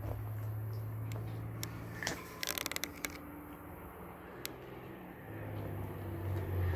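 Scattered sharp clicks and a quick run of crackling about two and a half seconds in, over a steady low hum.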